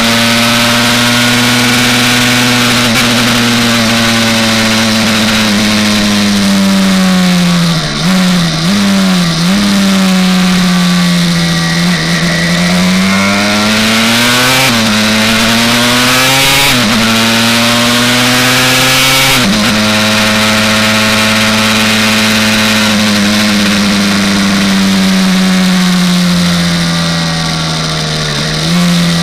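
Single-cylinder two-stroke engine of a Honda CR race bike, a 327cc TRX 250R engine, running hard on track. Its note falls with a few quick blips about eight seconds in as it slows and shifts down, then climbs and drops sharply three times as it shifts up through the gears, and holds a long, slowly falling note near the end.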